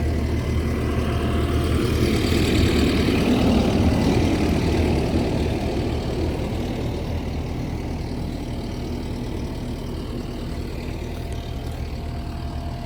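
Skid steer engine running steadily, growing louder for a few seconds about two seconds in and then easing back, with the machine stuck deep in mud.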